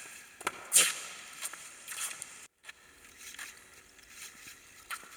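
Tiny Lego Technic RC car driving on a gym floor: a faint steady electric-motor whine with several short sharp squeaks and ticks, the loudest about a second in, and a brief dropout midway. The car is running slow because a part is rubbing against a wheel.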